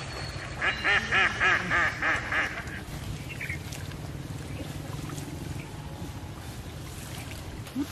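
A duck quacking a quick run of about seven quacks, ending about two and a half seconds in; after that only a quiet, steady outdoor background.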